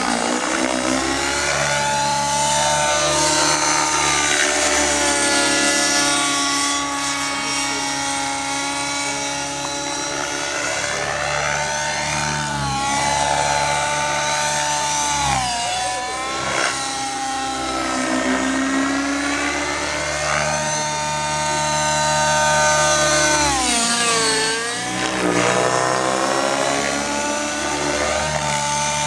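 Align T-Rex 700 nitro radio-control helicopter in aerobatic flight: its two-stroke glow engine and rotor blades whine continuously, the pitch swooping up and down again and again, with two sharp drops, one near the middle and one late on.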